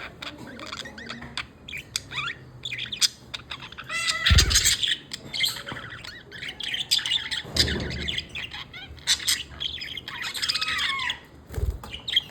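Pet budgerigar chattering: a busy run of quick chirps, squawks and warbling glides, the contented chatter of a happy budgie. Three dull low thumps break in along the way.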